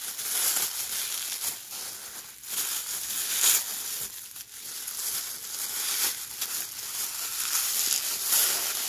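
White tissue paper crinkling and rustling as it is crumpled and pulled apart by hand during unwrapping, with a steady run of sharp little crackles.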